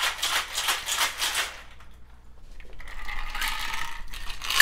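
Ice rattling hard in a cocktail shaker, in fast even strokes about five or six a second, which stop about a second and a half in. Then a softer hiss with a few faint ringing tones, and a sharp clink near the end.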